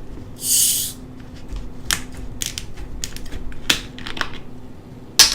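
A carbonated soda being opened, a short fizzing hiss about half a second in, followed by a few scattered clicks and knocks of the container being handled.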